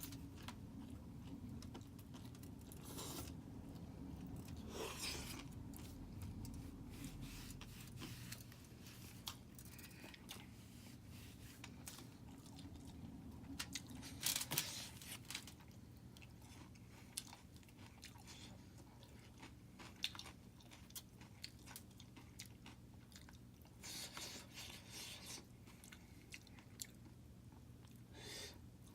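A person chewing and biting crunchy food, with scattered crunches that come thickest about halfway through and again near the end, over a faint steady hum.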